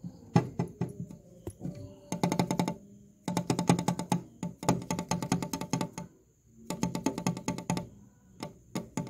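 Background music with a fast clicking, wood-block-like percussion beat and a steady pitched backing, playing in phrases that stop and start.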